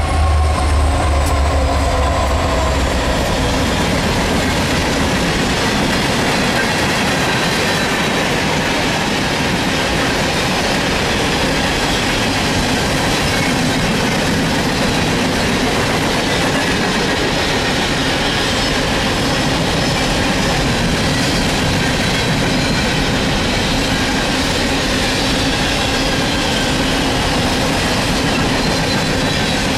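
Freight train passing close by. The lead EMD SD80MAC diesel-electric locomotive's 20-cylinder engine drones low for the first few seconds. It gives way to a steady rumble of coal cars rolling past, their wheels clattering over the rail joints with faint thin squealing tones.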